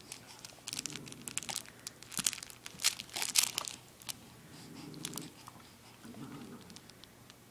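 Crinkly fabric baby toy crumpled and rustled in a baby's grip, crackling most busily a couple of seconds in. A few quiet baby coos come in between.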